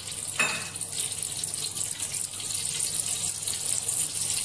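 Steady high hiss from oil heating in a large stainless steel pot on a gas stove, with a brief squeak about half a second in.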